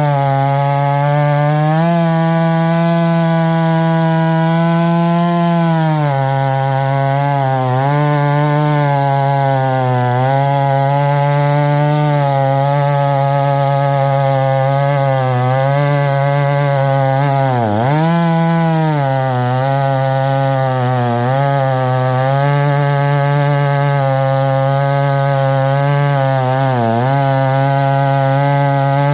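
Stihl MS661 C two-stroke chainsaw on an Alaskan chainsaw mill running near full throttle while ripping lengthwise through a pine log. The engine speed sags briefly under load several times, most deeply a little past halfway, then recovers.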